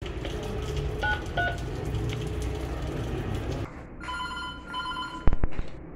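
Building intercom call: two short electronic beeps over a low background rumble, then the intercom rings with a steady two-tone electronic ring for over a second, broken once. Sharp clicks about five seconds in, the loudest sound, come as the handset is picked up.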